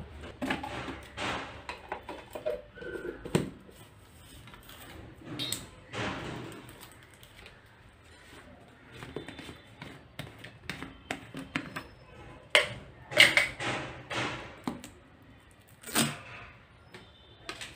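Plastic epoxy tubs handled by hand: irregular clicks, knocks and rustles of the containers, lids and seal. A cluster of louder clicks and rattles comes about three-quarters through, and a single sharp knock comes near the end.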